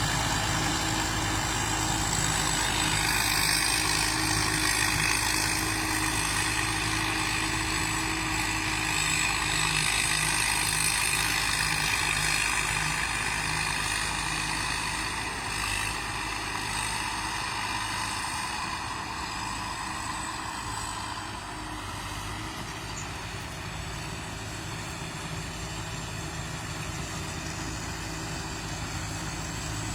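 Rice combine harvester's engine and machinery running steadily, a low even hum under a broad hiss with faint high whines, a little quieter in the second half.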